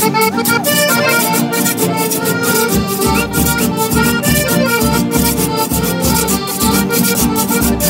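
Live folk band playing an instrumental passage: accordion melody over strummed guitars keeping a steady, even beat, with a low pulse coming in about three seconds in.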